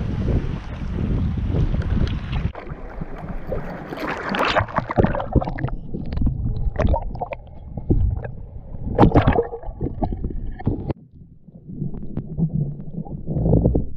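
Water sloshing and splashing around the camera at the surface. About two and a half seconds in, the sound turns muffled as the camera goes under, leaving underwater rumble and gurgling with a few louder bubbling bursts.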